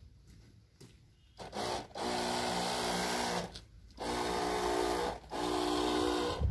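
Backpack sprayer spraying through its wand in three bursts of one to two seconds each, separated by short breaks: a steady pump hum under the hiss of the spray leaving the nozzle.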